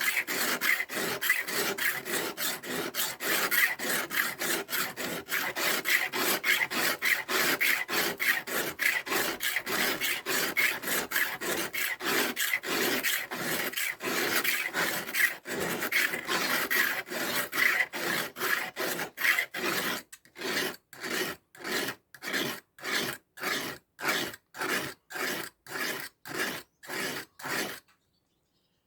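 Victorinox pocket knife rubbed back and forth on a fine wet sharpening stone, about three strokes a second. About two-thirds of the way through, the strokes become separate with short pauses between them, and they stop just before the end.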